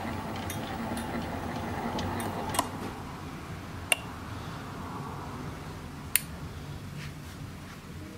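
12 V 240 W electric winch motor and gearbox running with a steady hum. About two and a half seconds in it drops away to a fainter hum after a click. A couple more single sharp clicks follow as the winch's toggle switches are flipped.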